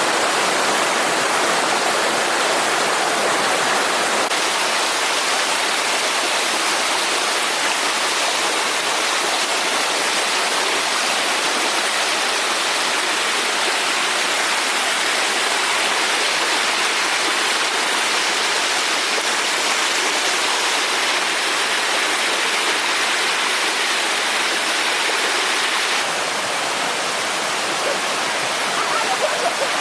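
Waterfall rushing steadily, an unbroken wash of falling water that drops slightly in level near the end.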